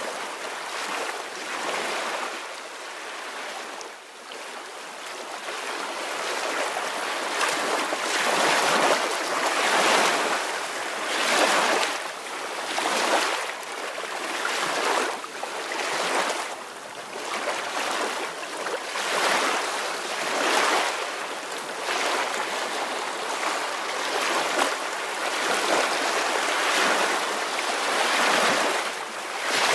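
Small ocean waves washing in and out, a steady hiss that swells and ebbs every second or two.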